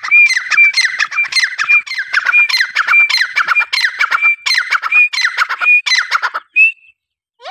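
Partridge (teetar) calling loudly: a fast run of harsh, repeated call notes, about three a second, ending with a short rising note near the end.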